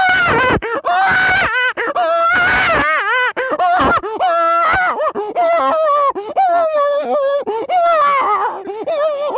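A man imitating a crying baby with his own voice: a high, wavering wail in sobbing phrases with short catches of breath, the mimicry of an infant crying and then sucking its thumb.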